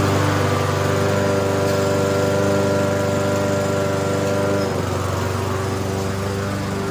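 Toro walk-behind lawn mower's small single-cylinder four-stroke engine running steadily, freshly started after a tune-up. Its note dips slightly in pitch and loudness about two-thirds of the way through.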